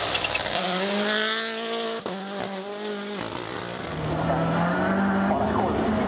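Rally1 rally car's turbocharged four-cylinder engine running hard at high revs, with a brief cut about two seconds in, then an engine note rising again near the end.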